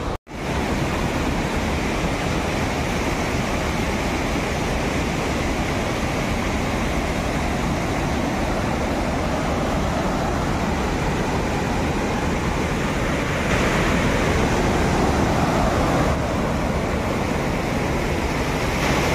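Muddy floodwater rushing over a low concrete weir and churning through rocks, a steady rush of water noise. It drops out for a moment just after the start and grows louder for a few seconds past the middle.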